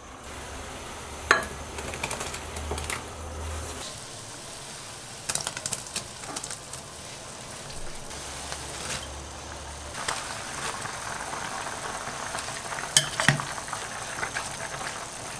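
Broth of ingredients boiling and bubbling in a ceramic casserole pot, with a few sharp clinks of a metal utensil or lid against the pot. The loudest clink comes near the end, while the pot is being stirred.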